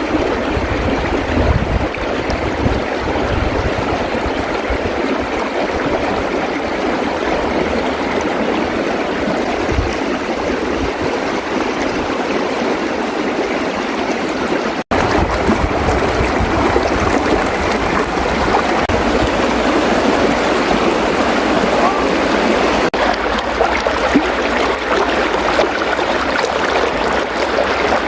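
Running water of a stream: a steady rushing noise that breaks off for an instant about halfway through.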